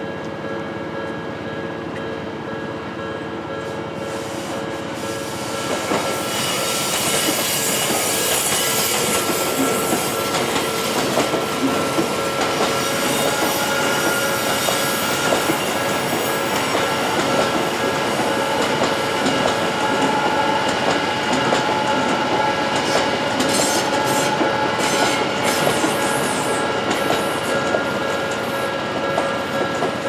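Level-crossing warning bells ringing steadily while an Odakyu 60000-series MSE Romancecar electric train, ten cars long, rolls over the crossing from about six seconds in. Its wheels rumble and clack over the rails, with some high-pitched wheel squeal as it first comes close.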